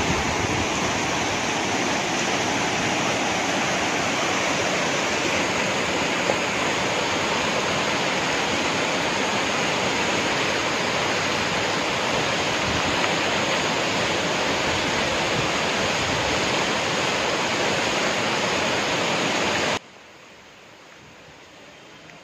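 Steady rush of turbulent water gushing out of a tunnel outlet and churning through rocky rapids. Near the end it cuts off abruptly, leaving only a faint hush.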